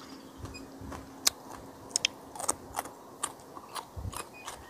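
Close-up eating sounds: chewing with scattered sharp mouth clicks and smacks, about one or two a second, with a couple of soft low thuds.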